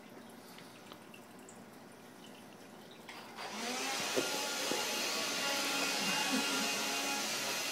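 A Dustbuster handheld vacuum switches on about three and a half seconds in and runs steadily, its motor giving a whine with several steady tones over the rush of air.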